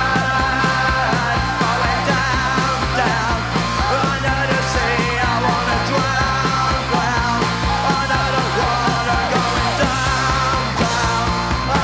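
Punk rock band recording: distorted electric guitars, bass and drums at a steady beat, with yelled vocals.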